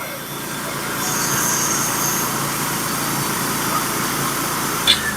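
Norwood HD36v2 portable bandsaw mill's engine running steadily under load as the band blade cuts through a scarlet oak log. A single sharp click comes just before the end.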